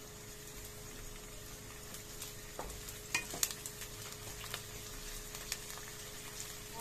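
Sliced onions frying in oil in a kadai with a steady sizzle, while a wooden spatula stirs them and knocks against the pan a few times, sharpest about three seconds in.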